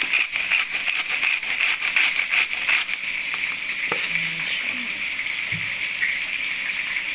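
Onions, squash and greens sizzling in a hot stainless pot, with the gritty crunch of a hand pepper mill grinding black pepper over it during the first three seconds.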